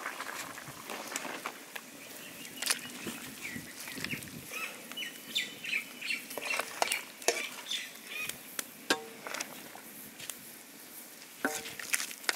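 A metal utensil stirring, scraping and knocking in a cooking pot, with scattered sharp clinks. Birds chirp in the background in the first half.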